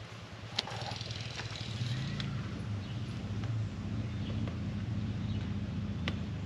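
A steady low engine hum, louder from about two seconds in, with two sharp clicks, one near the start and one near the end.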